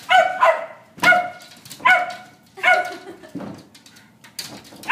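Jack Russell terriers barking in short, sharp barks, about one a second, while jumping up at a barrier.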